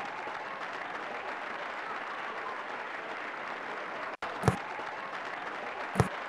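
Steady rushing noise with two sharp knocks, about four and a half and six seconds in; the second knock falls as a football penalty kick is struck.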